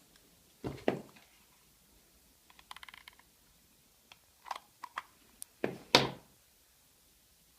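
Knocks and clicks from small parts being handled and set down: a pair about a second in, a quick run of a dozen or so small clicks around three seconds in, then several more knocks, the loudest about six seconds in.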